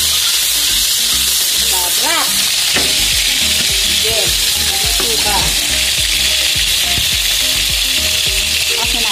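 White grubs (beetle larvae) and garlic frying in hot oil in a pan: a steady, even sizzle of bubbling oil.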